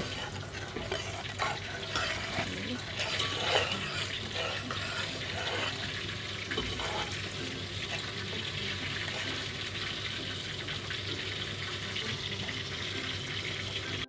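Chili sambal thinned with chicken broth simmering in a pan with a steady hiss, while a metal ladle stirs and scrapes through it, mostly in the first half.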